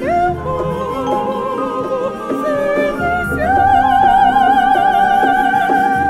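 Female opera singers singing over a small instrumental ensemble, several voices with wide vibrato; about three and a half seconds in, one voice takes a high note and holds it.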